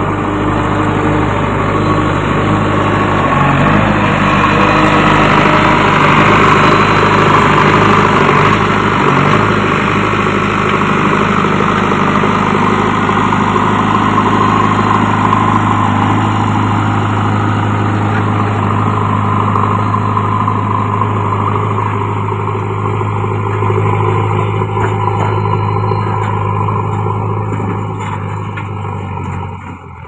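JCB backhoe loader's diesel engine running steadily at close range, an even low drone that is a little louder in the first third and drops away just at the end.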